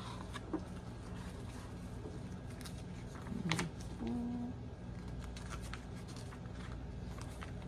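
Soft paper rustling and light clicks as a glossy player's guide booklet is opened and its pages handled, with a brief low hum from a voice near the middle.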